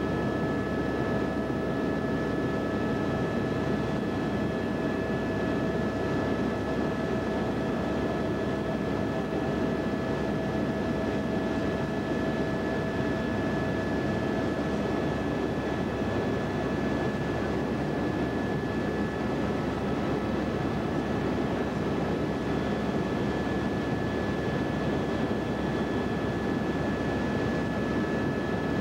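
Steady engine and airflow drone of a small aircraft heard from inside its cabin, with a few thin steady whining tones over the noise; the lowest tone fades out a little past halfway.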